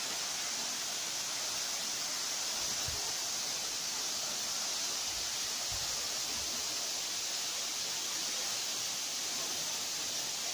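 Steady rushing hiss of water from a tall waterfall, about 150 m high, plunging into the pool below.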